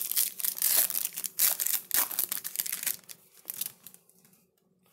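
Crinkly wrapper of a trading card pack being torn open and crumpled, a dense crackling for about three seconds that thins to a few rustles and stops.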